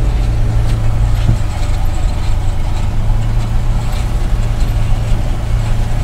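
Tractor engine running steadily while pulling a seed drill, a loud, even hum.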